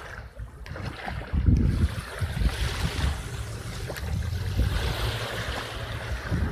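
Wind buffeting the microphone in uneven gusts over the steady wash of small waves on the shore.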